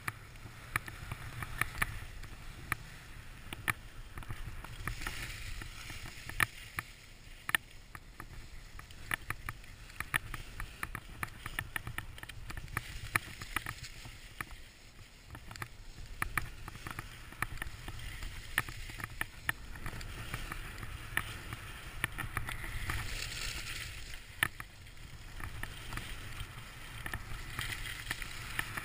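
Skis sliding and carving over packed snow: a steady scraping hiss peppered with many small clicks and knocks, swelling louder in a few turns, most of all about three quarters of the way through.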